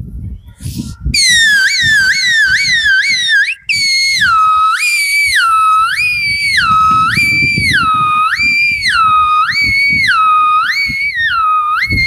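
A man imitating an ambulance siren with his mouth, whistling it. First a quick yelping sweep about two and a half times a second, then a slow two-tone high–low wail about once a second that stops near the end.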